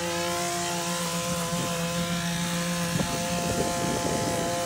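Lawnmower engine running steadily at one pitch. About three seconds in comes a sharp click, followed by a second or so of scraping.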